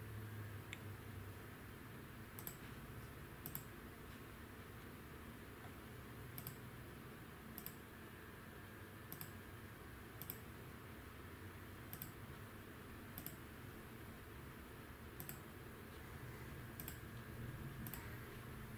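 Computer mouse button clicking about a dozen times at irregular intervals, each a short sharp click, over a faint steady low hum.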